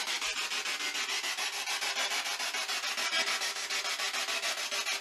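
Ghost-hunting spirit box sweeping through radio stations: rapid chopped static, about ten pulses a second.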